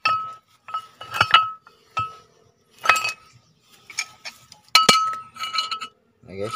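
A worn-out brake pad, down to its steel backing plate (metal to metal), tapped and rubbed against a removed Ford Ranger brake rotor: a dozen or so irregular metallic clinks, the rotor ringing with one clear high tone after each.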